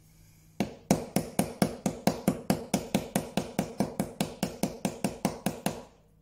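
Small hammer tapping lightly and quickly on a brass hinge leaf resting on a wooden block, about five or six taps a second, starting about half a second in and stopping near the end. The taps are flattening a slight curve out of the hinge before it is let into the door.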